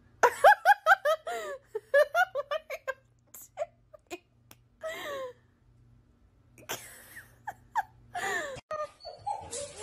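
A person giggling and laughing in quick high bursts, a rapid run in the first three seconds and another near the end.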